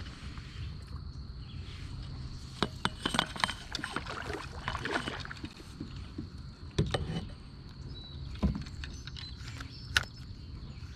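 Knocks and clatter of gear against a kayak's hull over a steady low rumble of moving water, with a faint steady high tone; the knocks come in a cluster a few seconds in, then singly near the end.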